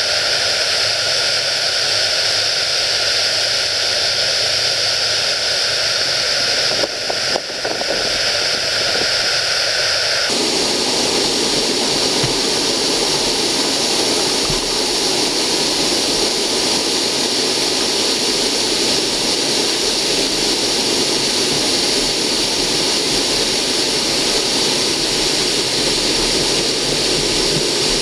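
Water pouring over a low dam's spillway into the river: a loud, steady rush of falling water. About ten seconds in the rush becomes deeper and fuller, as heard from right up at the base of the falls.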